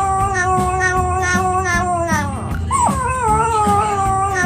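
Young Yorkshire terrier howling with its head raised, in a thin, high, puppyish voice: one long howl that slowly falls in pitch and trails off about two seconds in, then a second howl begins. Background music with a steady beat plays underneath.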